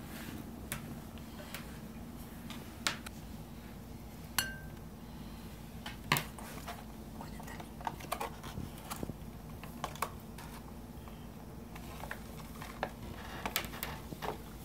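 A spoon scooping iron oxide powder and knocking against its containers: scattered light clicks and taps, a few louder, one with a short ring about four seconds in, and a quick run of taps near the end.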